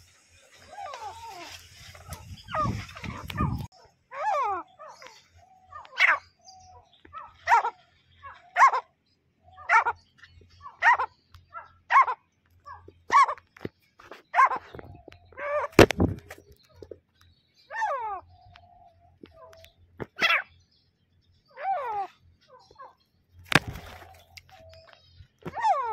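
Female grey francolin calling: a run of short, harsh calls about one a second, slowing in the second half. The opening seconds are a low rumbling of handling noise, and two sharp knocks come about two-thirds of the way through and near the end.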